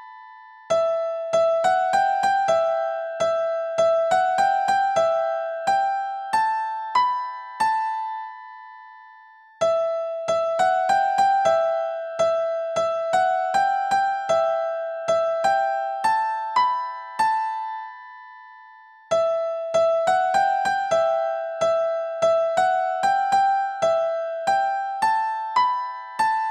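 A hymn melody played one note at a time on a keyboard with a piano sound. The same phrase is played three times, with a short pause after each.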